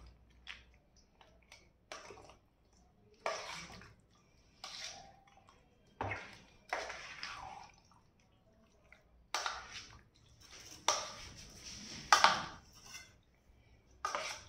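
Steel spoon stirring a thick yogurt marinade through raw chicken pieces in a stainless steel bowl: wet squelching and scraping strokes, short and irregularly spaced.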